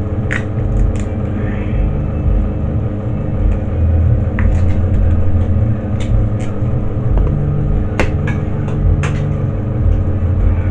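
A steady low mechanical hum and rumble, with light clicks and taps now and then from handling a plastic dye tub and brush.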